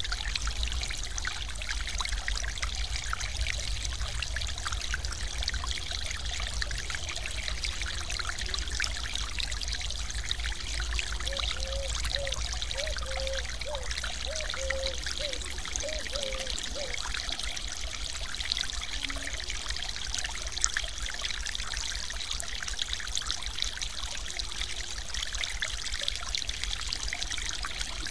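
Stream water spilling over a small concrete weir and splashing into the pool below: a steady, even rush of falling water.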